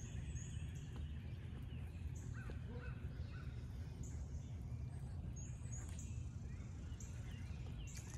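Faint outdoor ambience: a steady low rumble with a few faint bird calls.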